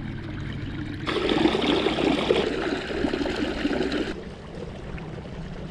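Water churning and splashing in the prop wash of a 55 lb thrust electric trolling motor pushing a canoe. The splashing gets louder about a second in and drops back about four seconds in.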